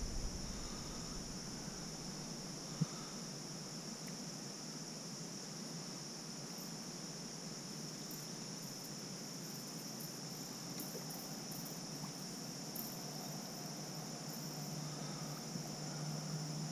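Steady, high-pitched insect chorus, with one sharp click about three seconds in.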